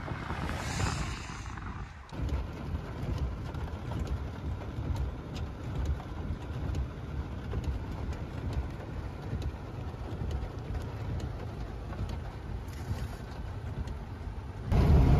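Wind buffeting the microphone for about two seconds, then, from inside a car, scattered ticks of rain and hail hitting the body and glass over a steady low rumble of the car. A louder rush of noise comes in near the end.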